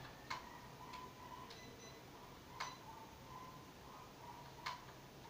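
Faint sharp clicks from a mini drone and its controller being handled: three louder clicks about two seconds apart with a few softer ones between, and a faint steady high whine in the gaps.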